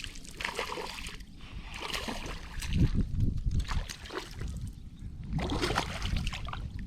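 Irregular splashing and sloshing of creek water as a hooked largemouth bass thrashes near the surface while it is reeled in, over a low rumble of wind on the microphone.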